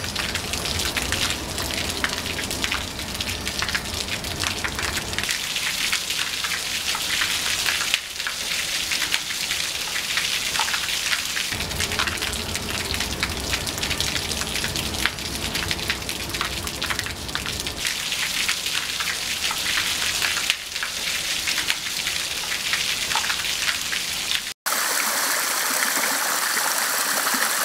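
Water from a dancing-jet fountain nozzle spraying up and falling back as a shower of droplets: a dense hiss of many small splashes. Near the end it cuts off abruptly and a steadier rushing of water takes over.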